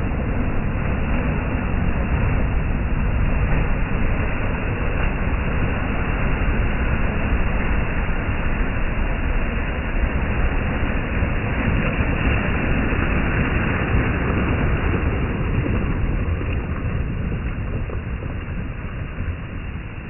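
Black Sea surf breaking on a pebble beach, the foaming wash running up over the stones. It is a continuous, loud rush that eases a little near the end.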